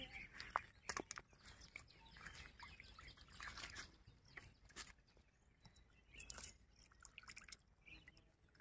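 Near silence with faint scattered clicks and rustles, a few sharper ticks in the first second and again around five and six and a half seconds in.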